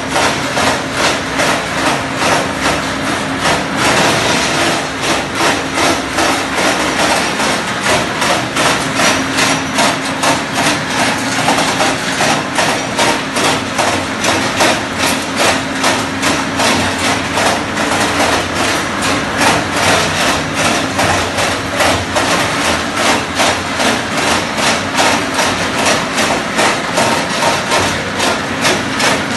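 Areca nut dehusking machine running: a steady electric motor hum under a fast, even knocking and rattling as the nuts are beaten and tumbled inside.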